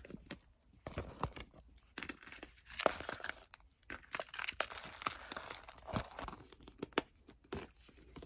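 Paper and small plastic packets crinkling and rustling as they are slid back into a Kirigami envelope pouch, with small irregular taps and clicks from handling the pouch as it is folded shut.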